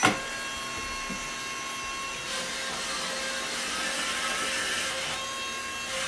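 Suction fan of an Air Hogs wall-climbing RC toy car running steadily with a high, many-toned whine, like a mini vacuum cleaner, holding the car against a door as it climbs. A sharp knock right at the start.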